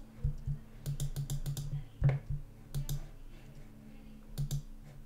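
Computer mouse and keyboard clicks, sharp and short, coming in small quick bursts with pauses between, over a steady low hum.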